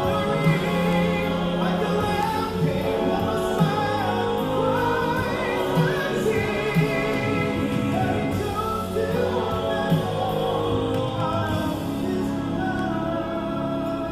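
A men's vocal group singing a worship song in harmony, several voices holding sustained notes together.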